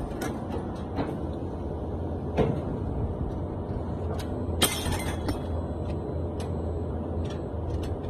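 CNC pipe clamp forming machine running with a steady low hum while it feeds, punches and bends flat steel strip. Irregular sharp metal clanks come through the hum, the loudest about halfway through.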